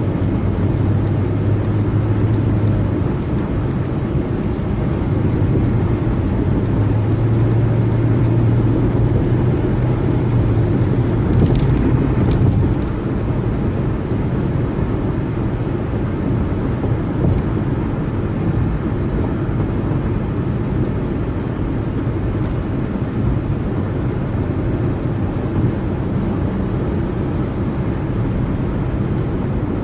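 Steady road noise of a car cruising on a freeway: tyre rush with a low engine and drivetrain drone. The drone swells slightly and then eases about twelve seconds in.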